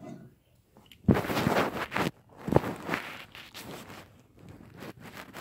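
Rustling and bumping of a phone being handled and moved around, with a sharp knock about two and a half seconds in.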